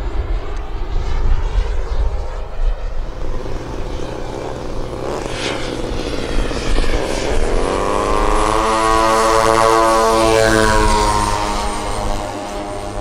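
Engine noise of a flying radio-controlled model aircraft, rumbling and noisy, for the first several seconds. Then the propeller engines of a twin-engine scale B-25 Mitchell model rise in pitch at about seven and a half seconds and run steadily at full power as it takes off and climbs past.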